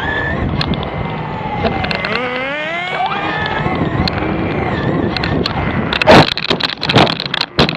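Radio-controlled car's electric motor whining, rising and falling in pitch with the throttle. Several sharp knocks and clatters come near the end, the loudest about six seconds in.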